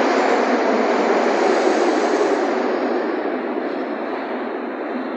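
Metro train running through the station, a loud rushing rumble that fades steadily over the second half.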